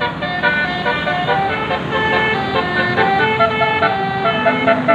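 A bus's basuri telolet horn playing a quick tune of short stepped notes, with road and engine noise underneath.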